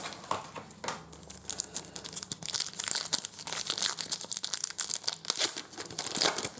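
Trading card pack wrapper being torn open and crinkled, a dense run of crackling that picks up about two seconds in.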